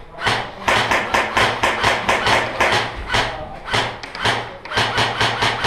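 Running footsteps: a quick, steady run of crunching strides, about three to four a second.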